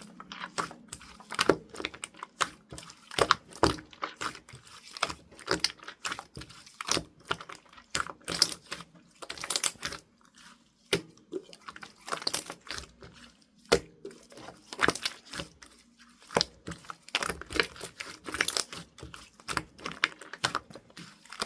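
Irregular crinkling, crackling and tapping noises, several a second with short pauses between runs.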